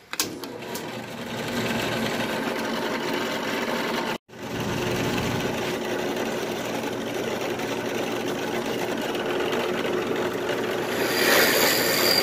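Delta benchtop drill press switched on, its motor winding up over the first second or two and then running steadily. It breaks off briefly about four seconds in. Near the end the bit bores into a wood block, adding a louder, noisier cutting sound.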